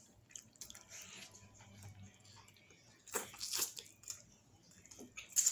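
A person biting and chewing a sauced chicken wing, tearing the meat off the bone with the teeth. The loudest bites come about three seconds in and again just before the end.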